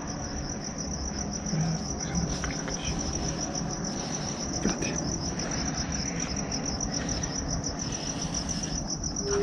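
Crickets chirping steadily in a fast, even trill.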